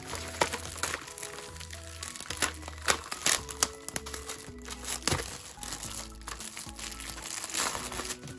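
Clear plastic wrapping crinkling in irregular sharp crackles as a boxed set of pens is handled and unwrapped by hand, over soft background music.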